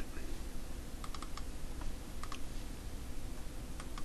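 Scattered clicks of a computer keyboard and mouse, in small groups about a second in, around two seconds in and near the end, over a steady low hum.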